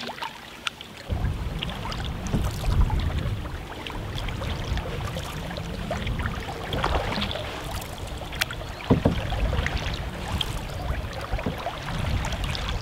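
Wooden paddles stroking through river water as an open canoe moves along, with small splashes and knocks. A low rumble on the microphone sets in about a second in and stays the loudest sound.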